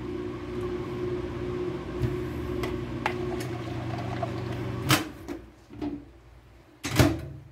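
Microwave oven running with a steady low hum while it reheats melt and pour soap base; the hum stops about five seconds in. Several light clicks and knocks sound over it, and a sharp clack comes about two seconds after the hum stops.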